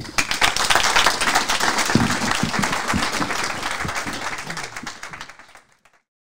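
Audience applauding, many hands clapping at once; the applause fades and cuts off to silence near the end.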